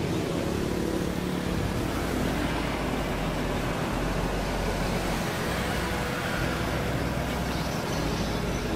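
Steady street traffic noise, with motorbikes and cars passing along the road.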